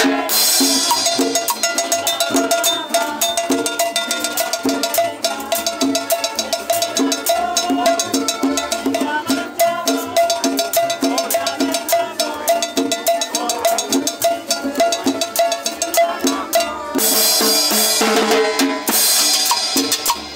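Cumbia played by a band, with a steady beat of drums and hand percussion under a held melody line. The high percussion turns brighter and busier for a couple of seconds near the end.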